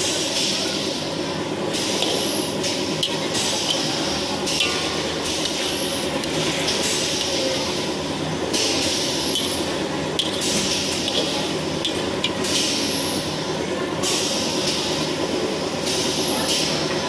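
Sambal goreng with eggs frying in hot oil in a pan: a steady sizzle and spatter, its high hiss swelling and easing every second or two.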